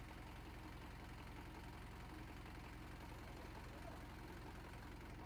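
Faint, steady idling of a truck's engine, a low even pulsing with no change.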